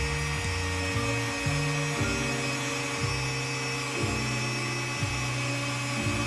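Background music: held synth-like tones over a bass line that changes note about once a second.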